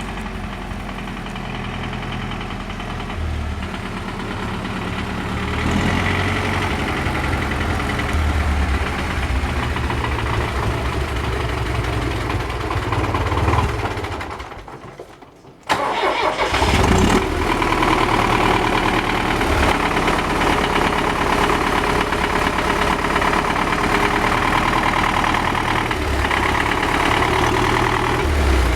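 MTZ tractor's diesel engine running, then dying away about halfway through into a second or so of quiet. It starts again abruptly and runs on louder than before.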